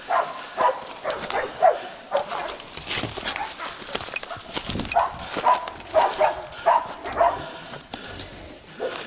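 Hunting dogs barking repeatedly, two or three short barks a second, as they bay and fight a cornered wild boar. Sharp crackles of dry leaves and twigs come through between the barks.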